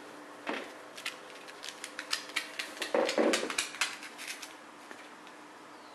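A string of sharp, irregular clicks and taps on a hard surface, more than a dozen over about four seconds, with a louder scuffling burst about three seconds in.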